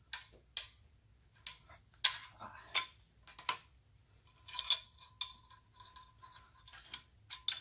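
Irregular metallic clicks and knocks from a Barrett M82A1 rifle's steel parts being handled, as a spring-loaded C-ring on the upper receiver is pulled back against its two springs and worked into place.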